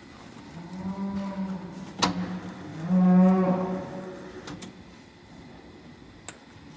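Dairy cow mooing twice, the second call louder, with a sharp knock between the two calls.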